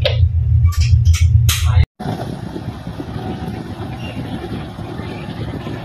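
Tugboat's diesel engine throbbing low and loud inside the wheelhouse; about two seconds in it cuts off abruptly and gives way to a steady rush of wind and churning water, with the engine faint underneath, out on the open deck.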